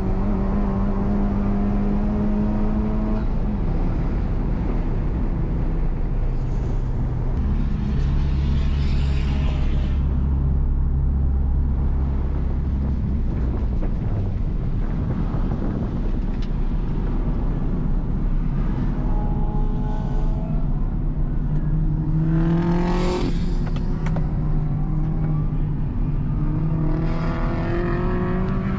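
Honda Civic Type R FK8's turbocharged 2.0-litre four-cylinder, heard from inside the cabin while driving hard on a track, its pitch climbing under throttle and dropping back several times. There are two brief rushes of hiss, about nine and twenty-three seconds in.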